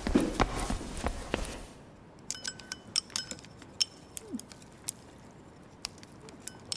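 Hurried footsteps with clothing rustle for the first second and a half, then chopsticks and spoons clinking now and then against porcelain bowls and plates at a dinner table.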